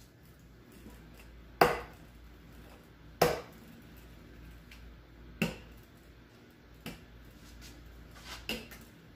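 A wooden rolling pin knocking against a wooden butcher-block counter while dough is rolled out: five sharp knocks spaced a second or two apart, the first two loudest.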